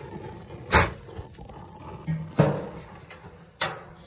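Three short, sharp knocks about a second and a half apart, over a low background, as the metal grill is handled.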